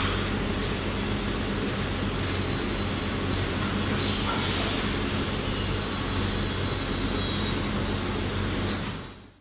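Injection moulding machines running in a workshop: a steady low machine hum under a constant hiss, with short higher hisses every second or so. The sound fades out just before the end.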